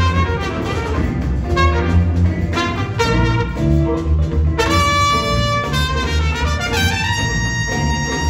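Jazz big band playing a funk tune live, with brass and saxophones over a strong bass line. About halfway through, the horns move into long held notes.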